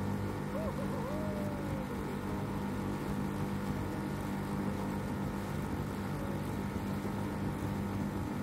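Boat motor running at a steady speed while underway, a constant drone with a rush of water and wind. A short wavering whistle rises and falls about a second in.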